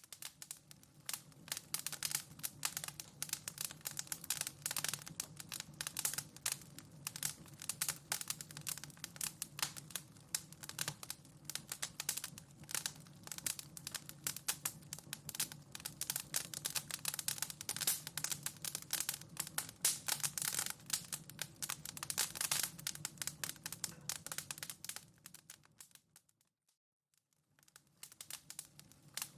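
Wood fire crackling in a fireplace: dense, irregular pops and snaps over a low steady hum. Near the end it fades out to a second or two of silence, then starts again as the recording loops.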